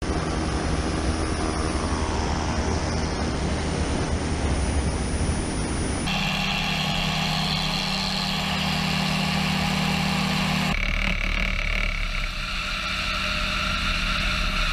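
Bayraktar TB2 drone's piston engine and pusher propeller running at takeoff power on the runway and into the climb, heard from a camera mounted on the airframe as a steady hum under a rush of air. The sound changes abruptly twice, about six and about eleven seconds in.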